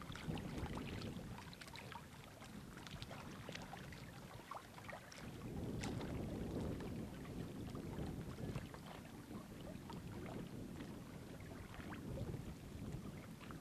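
Wind buffeting the microphone in an uneven low rumble that swells and fades, with scattered small clicks and splashes of water lapping among shoreline rocks.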